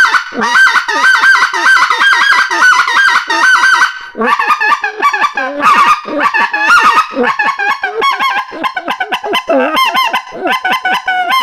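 Micro-diameter Mania Zephyr white-fronted goose call blown with both hands cupped around it, giving a quick run of rising-and-falling goose yelps. After a short break about four seconds in, the calling comes back denser and more varied.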